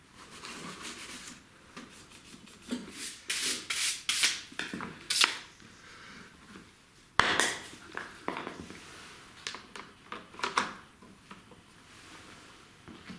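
Cloth rubbing and wiping over the plastic engine cover of a Honda GCV160 mower engine, in irregular strokes. There is a sharp knock about seven seconds in, and handling noises near the end as the recoil starter assembly is fitted.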